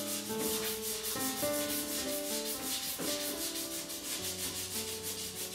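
Sandpaper rubbed back and forth by hand over an undercoated bicycle frame: a scratchy rasping in regular, repeated strokes, smoothing the filler and primer before the frame is painted.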